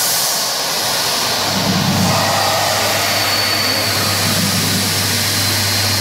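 Burmeister & Wain DM884WS-150 eight-cylinder two-stroke marine diesel engine running, a loud dense mechanical noise with a steady low hum that sets in about a second and a half in.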